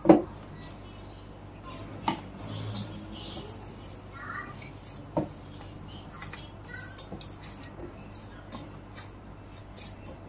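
Stiff semolina dough being kneaded by hand in a stainless steel bowl: the steel bowl knocks and clanks as the fist presses into the dough, sharpest right at the start and again about two and five seconds in, with quieter scraping and pressing noises between.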